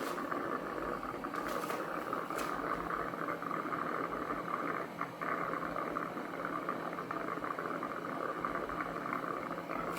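Cuckoo Power Clone robot vacuum station washing its mop pads: a steady whirring wash of spinning mops and water over a low motor hum, with a couple of faint clicks about two seconds in.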